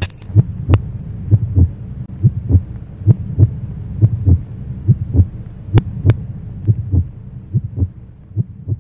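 Heartbeat sound effect: pairs of low thumps, a little over one beat a second, over a steady low hum. Two sharp clicks come about six seconds in.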